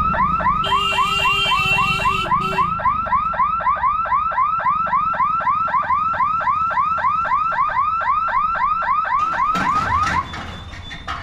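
Level-crossing warning hooter sounding a rapid rising whoop, about four a second, while the electric boom barrier lowers. It cuts off about ten seconds in, as the boom comes down. A steady horn tone overlaps it for about two seconds near the start.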